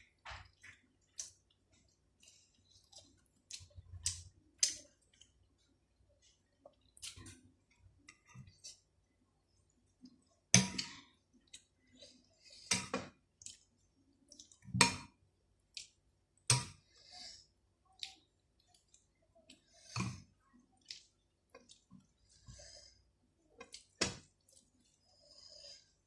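Close-up eating sounds of rice and chicken curry being chewed: irregular wet clicks and smacks of the mouth, a few of them sharper and louder through the middle of the stretch.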